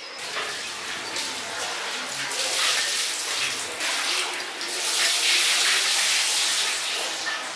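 Water pouring and splashing in a steady stream.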